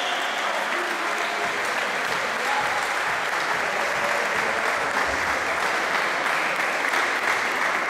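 Steady applause from players and spectators clapping their hands.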